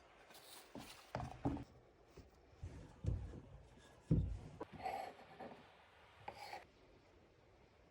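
Hand food-preparation sounds: a scattered run of soft scrapes and rubs with dull knocks, the loudest two knocks about three and four seconds in.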